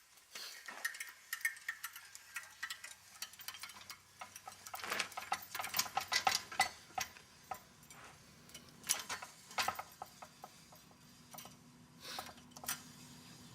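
Metal clicking and clinking as a Ringmaster tire-mounting tool is released from a loader wheel. The clicks come in quick runs, thickest from about five to seven seconds in, with shorter runs later.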